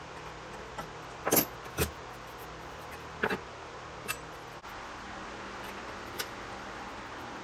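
A few short, sharp knocks and clicks, the loudest pair about a second and a half in, over a steady background hum.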